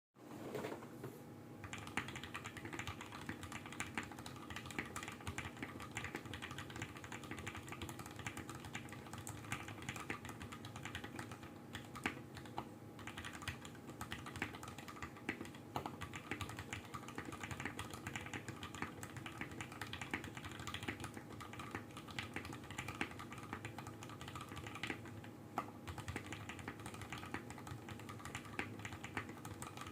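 Continuous fast typing on a custom 60% mechanical keyboard with lubed, filmed Durock Creamy Green linear switches, a brass plate, foam-filled case and PBT keycaps: a steady patter of key clacks with the odd louder spacebar or stabilized-key strike. A faint steady hum sits underneath.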